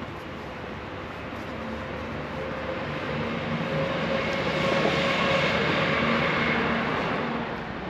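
A passing vehicle's engine hum, swelling to its loudest about five seconds in and then fading away.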